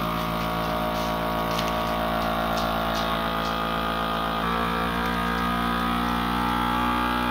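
Countertop vacuum sealer's pump running with a steady hum, drawing the air out of a bag of peppers. Its note changes about four and a half seconds in as the bag pulls tight.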